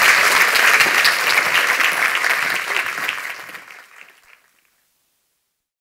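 Audience applauding, a dense clatter of many hands clapping that fades out about four seconds in, leaving silence.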